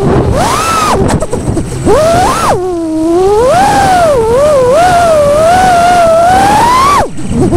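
FPV quadcopter's brushless motors and propellers whining, the pitch sliding up and down with the throttle. The whine cuts out briefly about a second in, swoops back up, then climbs steadily before dropping away sharply near the end.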